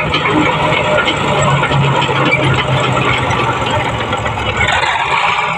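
Heavy diesel engine of construction machinery running steadily, its low engine note dipping slightly about a second and a half in, with some clatter over it.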